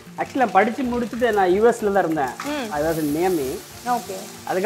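Biryani base sizzling in a large pot on a gas burner as it is stirred, with a person's voice talking over it throughout.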